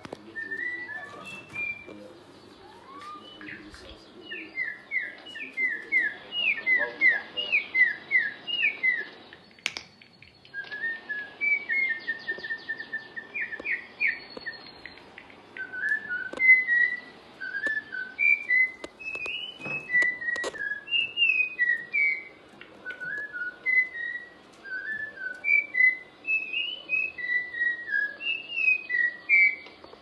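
Caged canaries singing: clear whistled chirps in short repeated phrases, some notes sweeping up in quick runs of several a second. A few sharp clicks sound faintly now and then.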